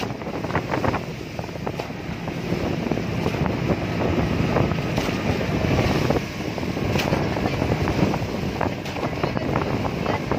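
Wind buffeting the microphone on a moving outrigger bangka boat, with the outrigger float splashing and throwing spray through choppy water and the boat's engine running underneath.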